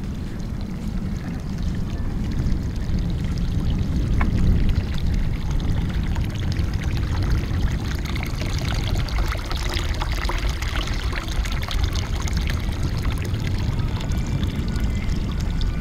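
Water pouring from a metal pipe spout into a stone water trough, splashing steadily and clearest past the middle, under a heavy low rumble of wind on the microphone.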